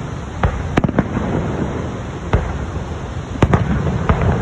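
Fireworks display: about half a dozen sharp bangs at irregular intervals over a continuous low rumble.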